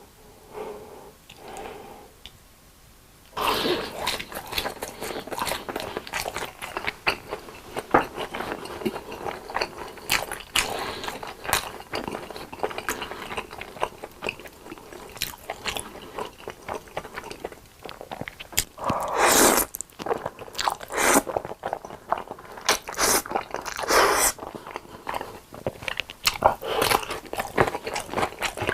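Close-miked eating: crisp bites and crunchy chewing of fried long cheese sticks, starting about three seconds in and carrying on densely, with a few louder bites later on.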